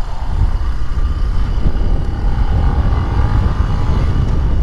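Benelli BN 125 motorcycle's single-cylinder engine running while riding, under a strong, fluctuating wind rumble on the microphone.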